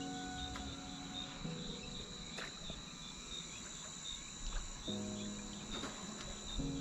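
Insects chirping in a steady high-pitched trill with a regular pulse, over background music of held chords that change every second or two.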